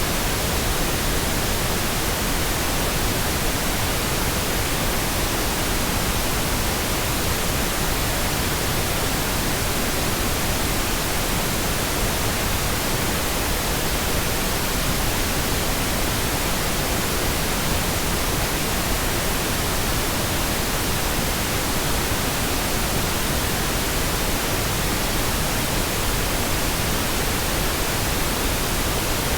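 Steady synthetic pink noise: an even, unchanging hiss spread across the whole range, fuller in the lows than white noise.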